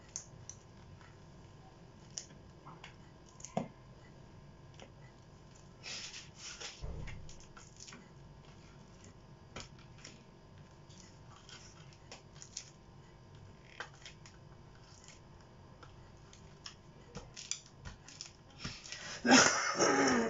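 Scattered light clicks and taps of small objects being handled and set down on a painting board, with a short rustle about six seconds in and a louder rustling, scraping burst near the end.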